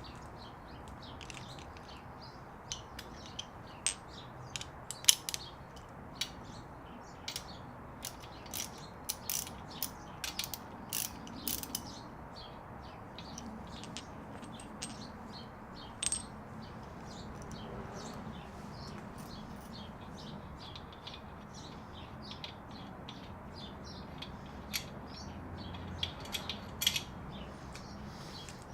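Wrench ratcheting in short runs of sharp clicks as the main bearing cap bolts are torqued down, with pauses between runs.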